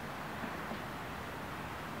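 Steady outdoor background noise: an even hiss with no distinct event in it.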